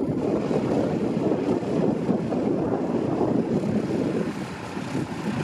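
Single-engine propeller light aircraft taxiing, its piston engine running at low power with a steady drone.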